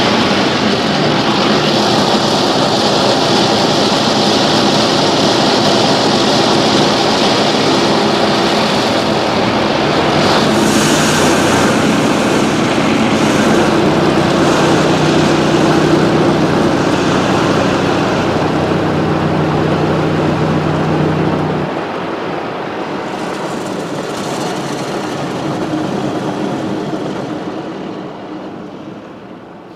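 Christ Varius car wash brushes turning against the car body with water spraying on the glass, heard from inside the car as a loud, steady wash over a mechanical hum. The hum cuts off about three quarters of the way through, and the sound dies down near the end.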